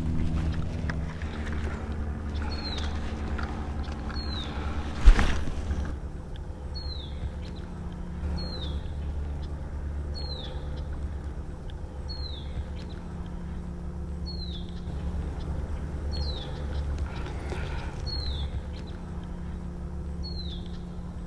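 A low, uneven rumble of wind on the microphone, with a bird repeating a short, high, falling note about once a second. One sharp knock about five seconds in.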